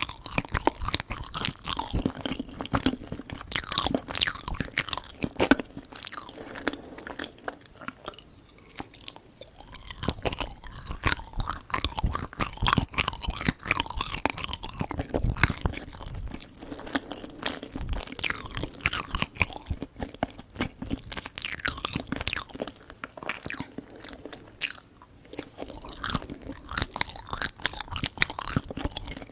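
Close-miked chewing and biting of Korean confections: many quick wet clicks and crunches in steady runs, with a couple of short pauses.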